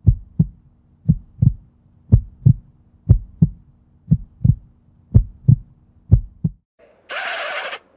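Heartbeat sound effect: paired lub-dub thumps about once a second over a faint steady hum, seven beats in all, stopping abruptly. A short burst of hiss follows near the end.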